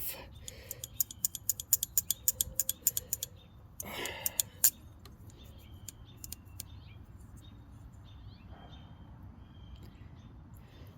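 Snap ring pliers being worked open and shut: a quick run of small sharp metal clicks, roughly four a second for about three seconds, then a louder clack of handling about four seconds in. Faint bird chirps follow.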